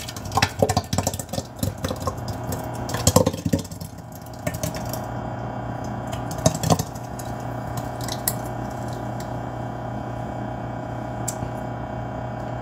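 Thick, slushy blended watermelon poured from a blender jar into a large mug: wet plopping and sloshing, busiest in the first few seconds and again around six seconds in, over a steady background hum.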